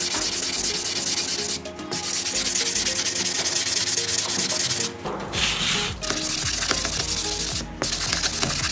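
Sanding sponge rubbed in quick back-and-forth strokes over the bare metal body shell of a die-cast model car, a dense scratchy hiss with a few brief pauses.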